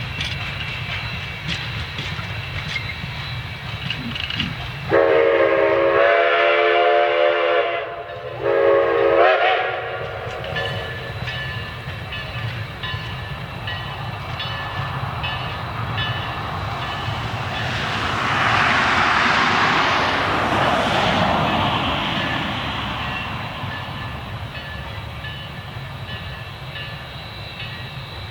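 Steam whistle of ten-wheeler steam locomotive No. 152 sounding a long blast and then a shorter one, over the steady rumble of the moving train. Later the train clicks along the rails, and a hiss swells and fades.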